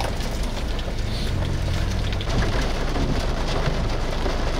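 Heavy rain falling on a vehicle's windshield and body, heard from inside, with many fine drop ticks over a steady low rumble.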